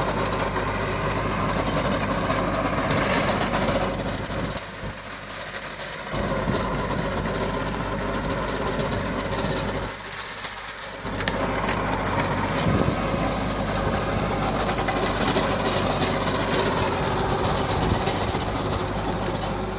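Compact tractor engine running under load while a tractor-mounted rotavator churns through grass and soil, a steady mechanical clatter. The sound drops away briefly twice, around five and ten seconds in.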